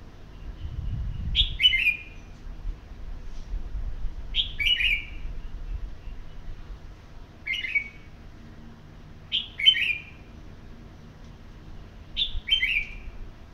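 Red-whiskered bulbul singing short, quick, falling phrases, five of them about three seconds apart.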